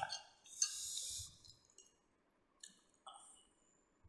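Quiet, wet eating sounds of people eating roast pork with their fingers: a squishy smack right at the start, a short hiss lasting under a second shortly after, then a few faint smacks.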